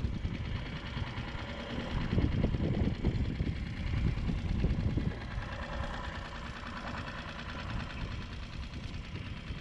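Small outboard motor running steadily, driving an inflatable dinghy across the water, with a rushing noise that is stronger in the first half and eases after about five seconds.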